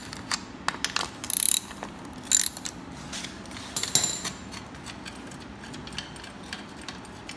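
Socket ratchet wrench clicking as bolts on the mini bike's engine mounting are worked, with a few sharp metal clanks of tools and parts in the first few seconds.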